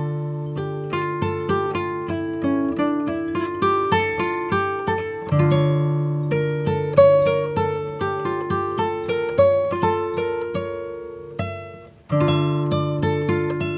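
Background music of picked acoustic guitar notes over a steady low note. It fades out briefly near the end, then starts again.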